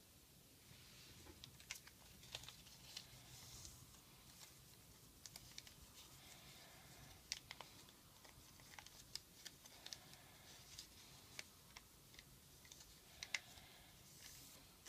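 Faint crinkling and crisp little clicks of a strip of origami paper being folded and creased by hand, irregular and scattered.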